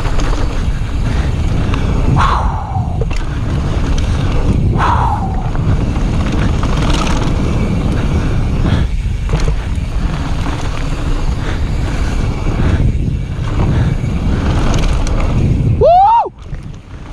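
Mountain bike rolling fast down a gravel trail: tyres rattling over loose stones and wind buffeting the GoPro's microphone in a steady low rumble. A few short falling squeaks come through about two and five seconds in, and a brief rising-then-falling cry-like tone near the end.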